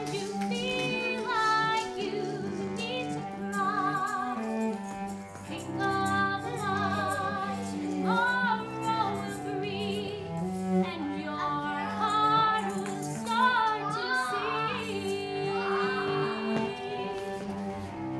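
A woman singing with vibrato, accompanied by a cello playing sustained bowed notes.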